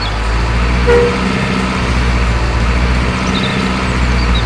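Truck engine sound running steadily at a low pitch, with a short horn toot about a second in.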